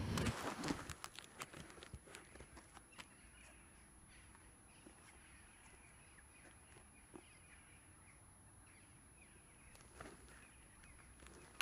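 Faint outdoor background with small birds chirping here and there, after a brief cluster of knocks and rustling right at the start.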